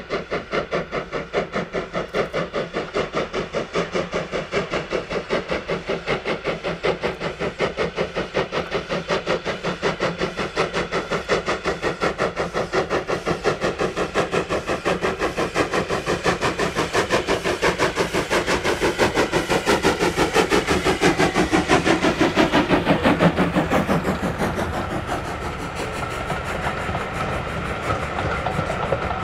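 LSWR T9 4-4-0 steam locomotive's two-cylinder exhaust beating evenly and quickly as it works a passenger train, growing louder as it nears and passes, loudest about 23 seconds in. The beats then fade, leaving the coaches' wheels rolling by on the rails.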